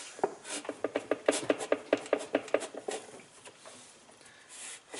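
Rapid small clicks and knocks, about five a second for nearly three seconds, then a few quieter ticks and a louder knock at the very end: a washing machine's plastic washplate being tugged and rocked while stuck fast, fused onto the transmission shaft.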